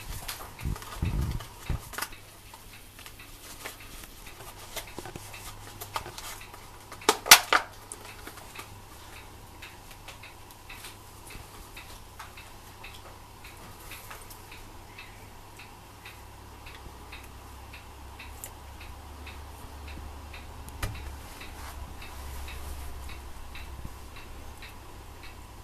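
Leopard gecko feeding on superworms from a shallow ceramic dish: a brief sharp clatter against the dish about seven seconds in, over a steady faint ticking.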